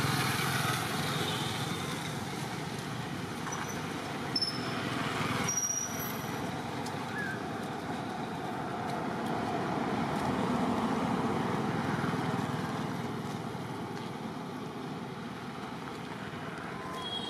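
Road traffic passing in the background: a steady rushing that swells and fades several times as vehicles go by, with a few brief high chirps.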